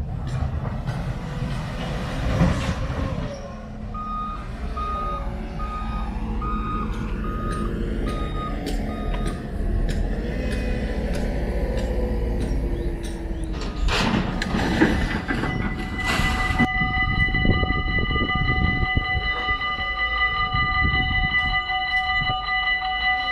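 Roadwork machinery rumbling, with a vehicle's reversing alarm beeping steadily, about eight beeps, from about 4 s to 9 s. A few loud knocks and clatters come around the middle. About 17 s in, a railway level crossing's warning bells start ringing and keep on steadily.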